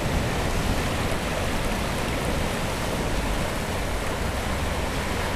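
Ocean surf breaking over a rocky shoreline and washing through shallow water between the rocks: a steady rush of water with no single crash standing out.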